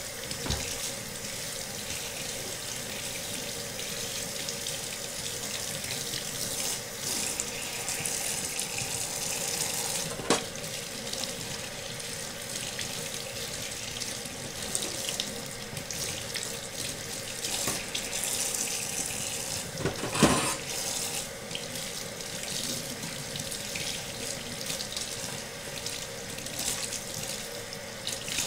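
Kitchen faucet running steadily onto a trumpet and into a stainless steel sink as the brass and its slides are rinsed under the stream. Two sharp knocks, about ten and twenty seconds in.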